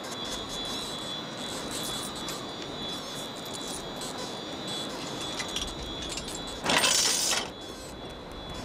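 Coins clinking in a hand, then a loud rattling burst of under a second about seven seconds in as a coin goes into a coin-operated binocular viewer. Under it is a steady hiss with a faint high steady tone.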